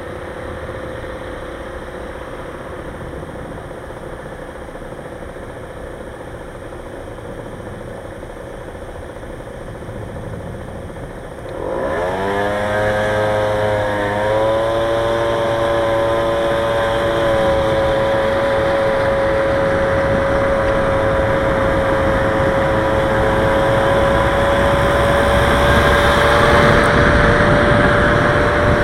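Motorcycle engine idling at a stop, then pulling away about twelve seconds in: the engine note climbs quickly, dips briefly, then holds a steady pitch as the bike rides on, with wind noise building toward the end.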